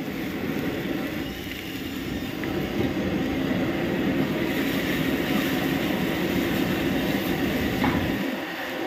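Steady rushing noise of a high-flame gas wok burner under a steel wok. A ladle clinks once against the wok near the end, and the low rumble falls away just after.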